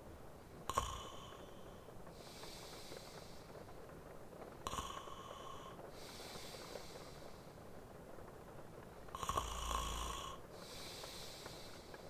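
A sleeping man snoring, three breaths about four seconds apart. Each snoring inhale is followed by a softer hissing exhale. The third snore, near the end, is the longest and loudest, with a low rumble.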